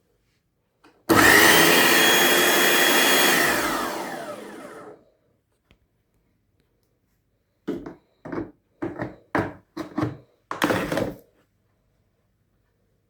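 Kärcher K2 electric pressure washer's motor starting suddenly and running steadily for a couple of seconds, then winding down in pitch as it stops. A few seconds later it runs again in a quick series of about seven short bursts.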